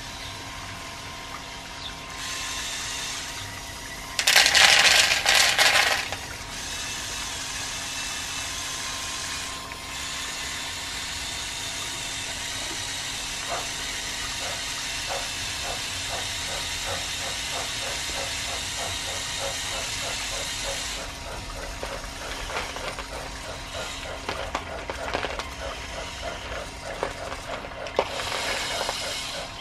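Electric motors and gearing of a motorised LEGO Technic 8043 excavator whirring as it swings and works its boom and arm actuators, with a regular clicking from the gear train. Dried beans rattle loudly into a plastic tub for about two seconds a few seconds in. Near the end the bucket scrapes and rattles through beans as it digs.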